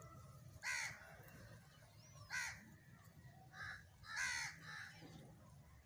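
Crows cawing: about five short, harsh caws, one to two seconds apart, the last few coming closer together.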